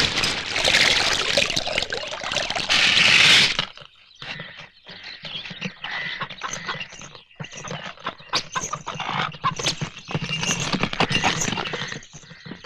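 A loud rushing noise for about the first three and a half seconds, cutting off suddenly. Then a bullock cart on the move: irregular clopping and clattering of the oxen's hooves and the wooden cart.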